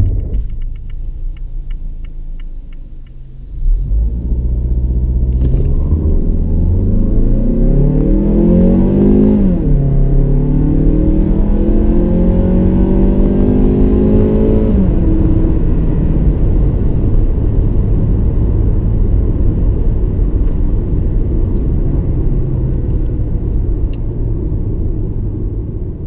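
2017 Mazda3's 2.0-litre four-cylinder with six-speed automatic, heard from inside the cabin: a low rumble with the hazard lights ticking, then a full-throttle run starting about three and a half seconds in. The revs rise, drop once at an upshift around ten seconds, climb again and fall away when the throttle lifts near 100 km/h. Steady engine and road rumble at cruise follows.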